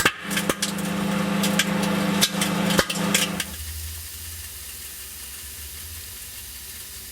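Microwave oven running on high with a steady hum while bacon inside crackles and pops as it fries. About three and a half seconds in, the hum and popping stop together and only a softer low hum and hiss remain, as the microwave shuts off.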